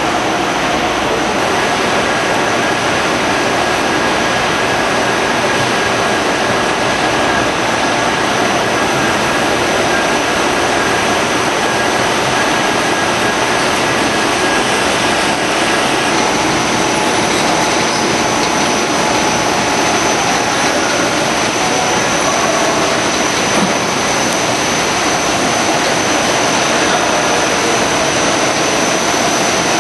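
Pita dough laminating and sheeting line running: a steady, even mechanical whir of conveyors and rollers, with a thin steady high-pitched whine on top.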